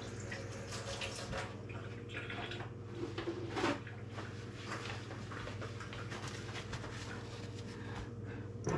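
Faint tap water running and splashing at a kitchen sink as hands are washed, over a steady electrical hum, with a brief louder knock about three and a half seconds in.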